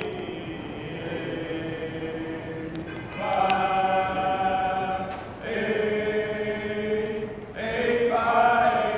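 A group of steppers' men's voices chanting in unison on long, held notes. They begin quieter, then come in louder phrases starting about three seconds in, again about halfway through and again near the end.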